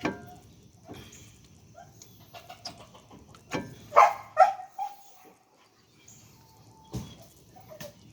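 A dog barking twice in quick succession, with a few sharp knocks before and after.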